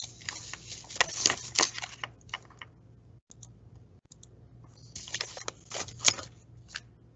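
Irregular clicking and tapping of a computer keyboard, in two clusters, over a faint steady low hum.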